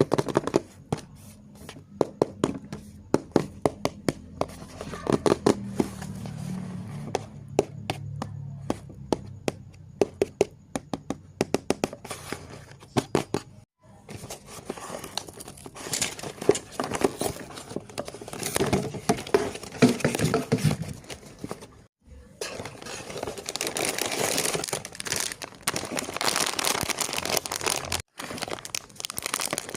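Unboxing a toy blind box by hand: a run of sharp taps and clicks on the packaging, then, from about halfway, crinkling and tearing of its plastic wrapping.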